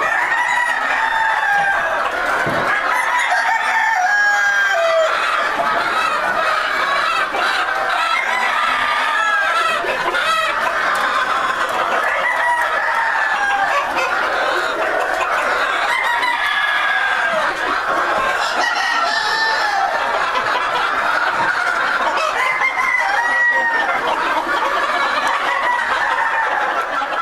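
A flock of White Crested Black Polish chickens clucking and calling over one another without a break, with roosters crowing now and then.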